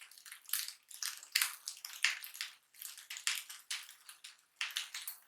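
Spatula stirring and scraping fried rice around a non-stick pan, in short, uneven strokes about two or three times a second.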